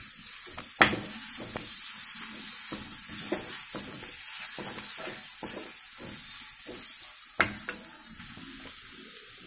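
Masala paste of onion, ginger-garlic and chilli powder sizzling in oil in a metal kadai, stirred and scraped by a steel spoon in repeated strokes while it fries down. Two sharp knocks of the spoon on the pan, one about a second in and another later on.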